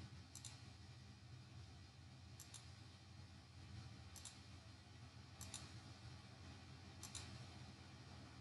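Faint computer mouse clicks, each a quick press-and-release pair, about five of them one to two seconds apart, over a low steady hum.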